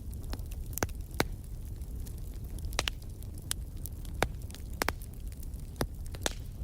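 Wood fire burning in a fireplace: a steady low rumble of flames with about a dozen sharp, irregular crackles and pops from the logs.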